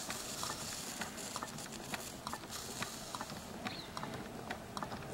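Small homemade Stirling hot air engine running, its piston and displacer linkage making light, irregular clicking as the flywheel turns.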